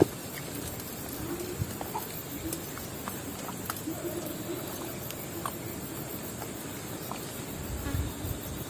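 Insects chirring steadily in a fast pulsing high buzz, with scattered small ticks and knocks over it.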